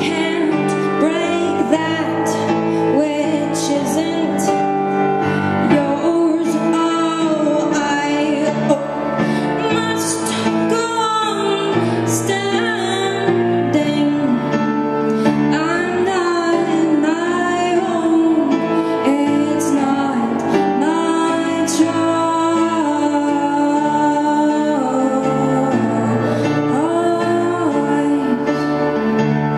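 A woman singing a slow ballad live into a microphone, her melody rising and falling over sustained keyboard chords that change every couple of seconds.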